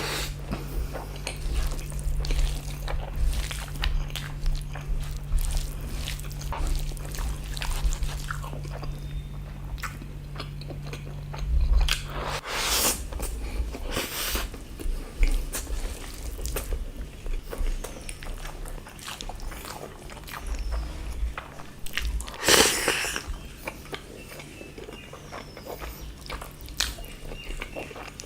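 Close-miked eating: a person chewing and biting into rice and chicken curry, with many short mouth clicks and a few louder bites. A steady low hum stops about halfway through.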